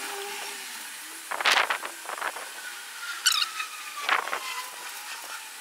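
Paintbrush scrubbing liquid rust converter onto a rusty steel battery tray in about four short scratchy strokes. Behind it a vehicle passes, its faint whine falling slowly in pitch.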